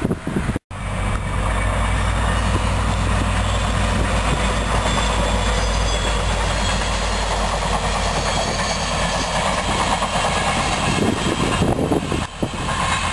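Westbound CDOT commuter train passing close by. Its diesel locomotive's engine gives a steady low drone over the noise of the wheels on the rails. Near the end the drone drops away as the passenger coaches go by.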